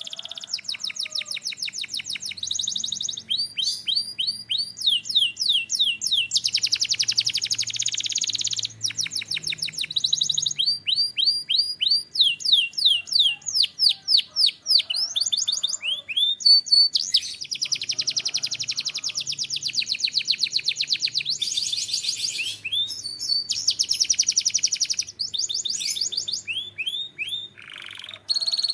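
Canary singing a continuous song of fast trills and rapidly repeated sweeping notes, changing from one phrase to the next every second or two.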